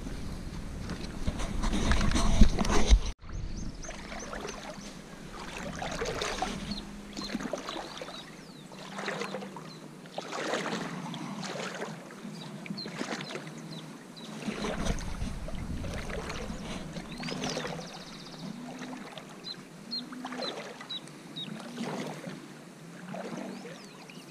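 A person wading through floodwater, legs pushing through the water in repeated swishes and splashes roughly every second or two. In the first few seconds before a cut, wind buffets the microphone.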